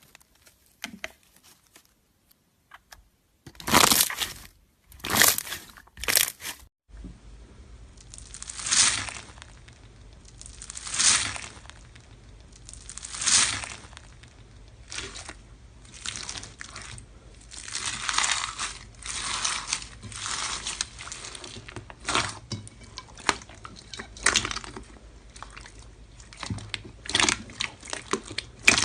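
Slime being squeezed and worked by hand: sharp crackling pops at first, then, from about seven seconds in, slower swelling squelches about every two seconds laced with small crackles.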